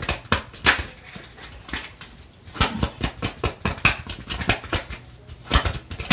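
A deck of tarot cards being shuffled by hand: a quick, uneven run of soft card flicks and snaps that eases off briefly twice.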